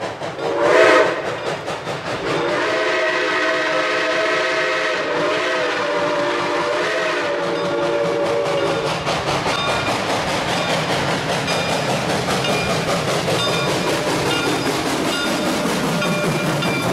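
Steam locomotive chime whistle: a short blast, then a long blast of about six seconds that wavers slightly in pitch. After it, the train runs on with its wheels clicking steadily over the rail joints.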